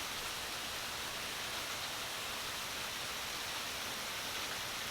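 Steady hiss of very heavy rain, a tropical downpour pouring down without let-up.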